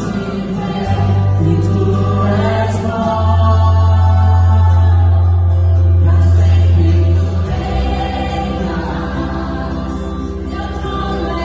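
Congregational worship music: voices singing together over a band with sustained bass notes that change every few seconds.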